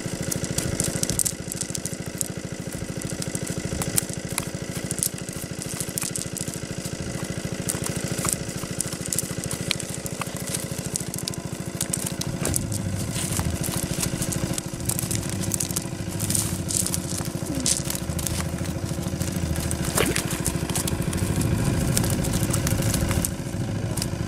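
A small engine running steadily, with light crackling and rustling of a cast net and plants being handled close by.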